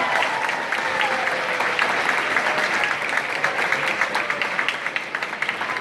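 Audience applauding at the end of a dance number, dense steady clapping with a few voices calling out over it.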